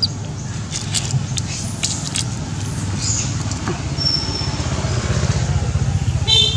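Steady low engine rumble, like a motor vehicle idling, with scattered small clicks and a short high squeal near the end.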